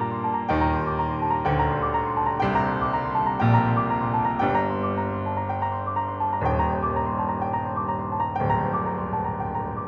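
Solo piano music, an original piano composition: a chord struck about once a second under quick repeated high notes.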